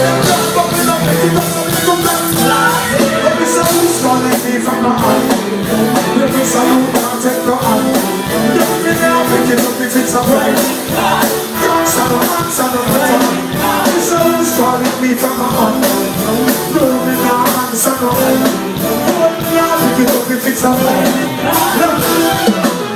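Live reggae band playing with singing, recorded on a phone in a concert crowd.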